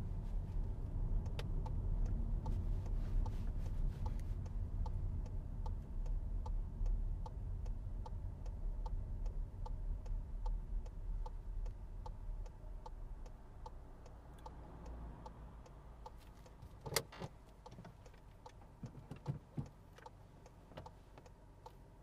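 Inside a manual SEAT car, the engine and road rumble fade as the car slows to a stop, while the indicator ticks steadily at about one and a half ticks a second. Near the end comes a sharp ratcheting clatter as the handbrake lever is pulled up, followed by lighter clicks of the gear stick going into neutral.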